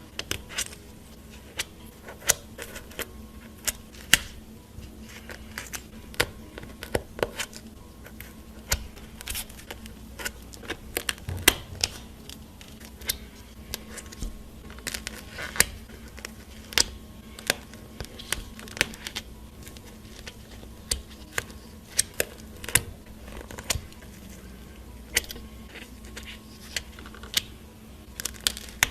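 Slime being pressed and poked by hand, making irregular sharp clicks and pops, roughly one or two a second.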